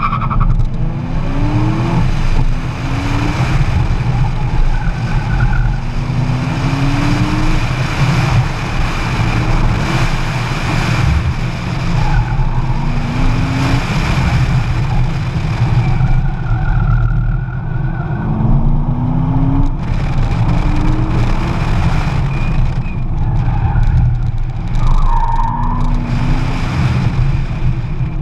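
A car's engine under hard acceleration through an autocross run. The revs climb again and again, about eight rising sweeps, with short tire squeals through the corners.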